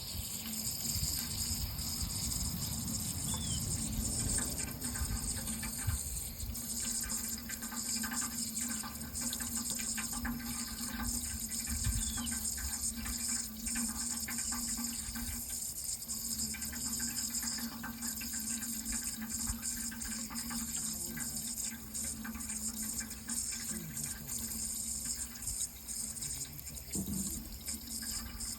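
Running water, a steady, unbroken flow.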